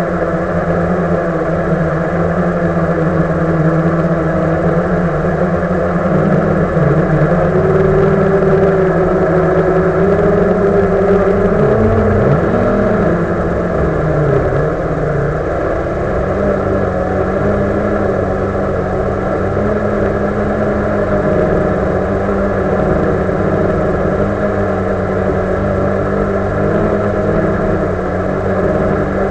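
Blade 350 QX2 quadcopter's four motors and propellers buzzing steadily, heard from the camera on board. The pitch wavers and dips briefly a few times near the middle as the drone manoeuvres.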